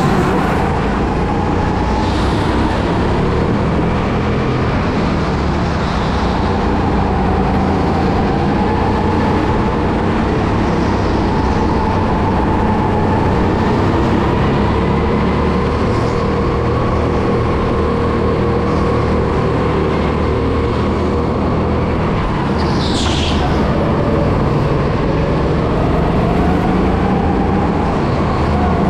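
An electric go-kart at racing speed heard from on board: a motor whine that rises and falls with speed over steady rolling and wind noise. A brief high hiss comes about three-quarters of the way through.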